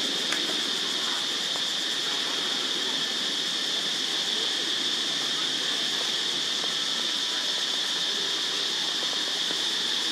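Steady high-pitched insect drone over a constant outdoor hiss.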